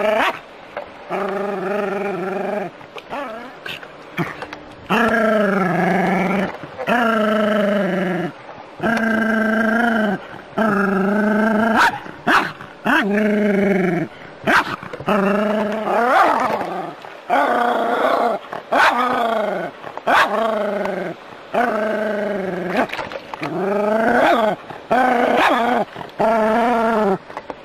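A dog giving long, drawn-out whining cries, one after another every second or two, each bending up and down in pitch.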